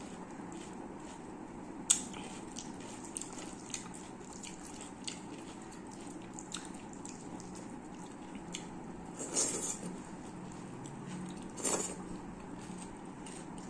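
Fingers mixing and squeezing wet rice and curry on a stainless steel plate: soft squishing with scattered small clicks against the plate, the sharpest about two seconds in, and two brief louder bursts later on.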